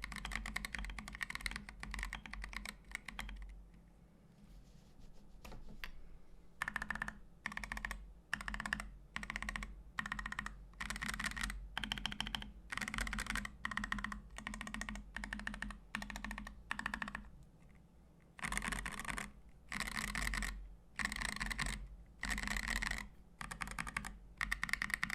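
Typing on a foam-dampened Preonic ortholinear mechanical keyboard with lubed Boba U4T tactile switches, an aluminum plate and Kat Lich keycaps, giving a deep keystroke sound. A quick run of keystrokes opens, then after a pause about four seconds in, the typing comes in short bursts of a few keys about once a second.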